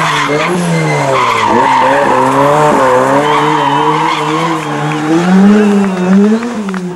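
Ford Sierra Cosworth rally car's turbocharged four-cylinder engine revving up and down repeatedly as the car slides through a bend, with tyres squealing for a few seconds starting about a second in.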